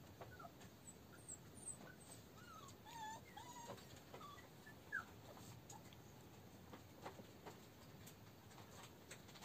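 Month-old toy terrier puppies whimpering faintly in short, high squeaks, the loudest about five seconds in. A few faint ticks follow near the end.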